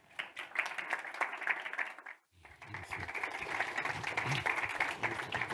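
Audience applauding, a dense patter of clapping that cuts out briefly about two seconds in, then resumes and ends with the window.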